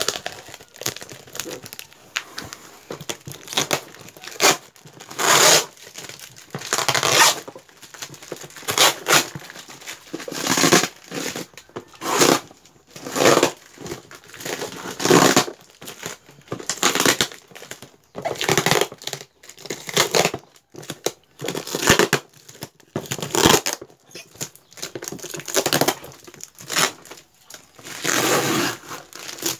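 Packing tape being ripped off a cardboard box by hand in many short, irregular tears, with clear plastic wrap crinkling between them.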